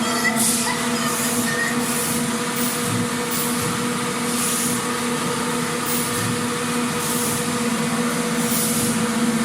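Factory machinery running: a steady hum with a constant low tone, and short hissy pulses every second or so.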